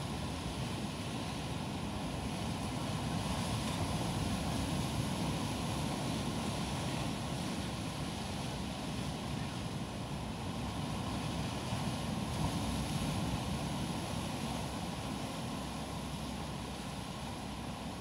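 Sea waves breaking on a rocky shore: a continuous rush of surf that swells and eases gently.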